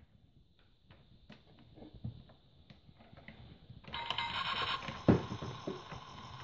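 Light plastic clicks as the toy garage's buttons are handled, then about four seconds in the Fisher-Price Little People Fun Sounds Garage plays an electronic sound effect through its small built-in speaker. A sharp click a second later.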